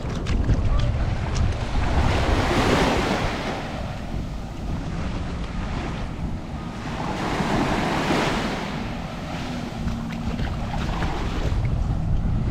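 Sea waves breaking and washing up the beach, swelling and fading several times, with wind rumbling on the microphone.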